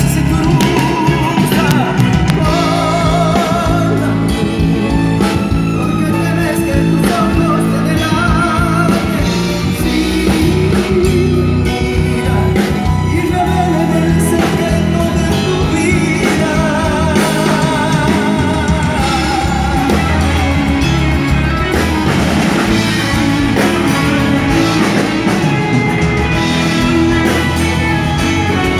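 Live band playing a song through a stage PA system, with a lead voice singing over guitars and drums.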